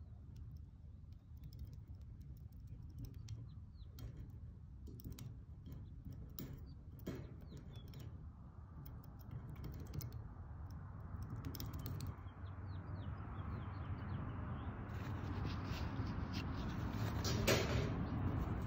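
Palette knife dabbing and scraping thick acrylic paint on a metal saw blade, giving light scattered clicks, over outdoor ambience with birds chirping. A low background rumble grows louder toward the end.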